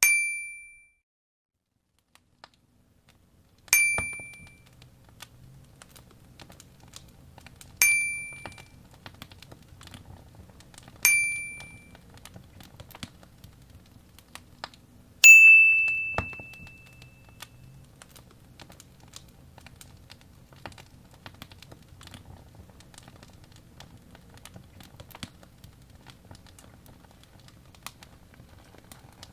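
Fireplace crackling: a steady run of small pops and snaps over a low rumble, starting about four seconds in. Over it, four alike bell-like dings about four seconds apart, then a fifth, slightly higher, louder and longer ding about fifteen seconds in.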